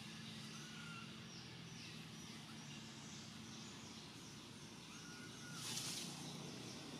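Quiet outdoor ambience with birds calling: a run of short, high, falling chirps and a couple of brief whistled notes, over a faint steady low hum. A short rustling hiss comes about six seconds in.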